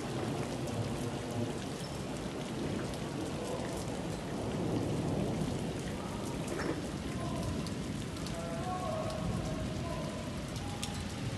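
Steady heavy rain pouring down on hard ground, with a low rumble of thunder swelling about halfway through.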